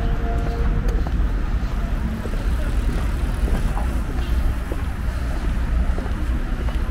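Outdoor street ambience: a steady low rumble with an even background hum of activity and a few light clicks. A held tone fades out about a second in.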